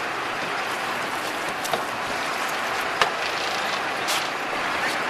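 Steady noise of a fishing boat at sea, with engine, wind and water running together, and two sharp clicks, a little under two seconds in and again about a second later.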